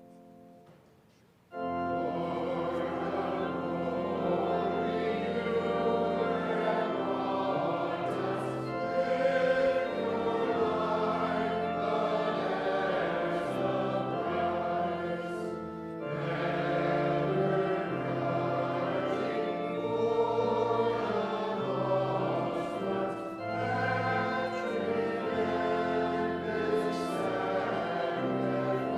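Congregation singing a hymn with organ accompaniment. The singing starts together about a second and a half in, after a brief pause at the end of the organ introduction.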